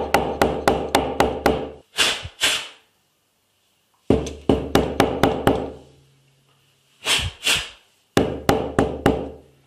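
A Doogee S86 rugged smartphone being rapped repeatedly against a hard surface to knock water out of its microphone opening, which the water had muffled. Three runs of sharp knocks, about four or five a second, with two short noisy rushes between them.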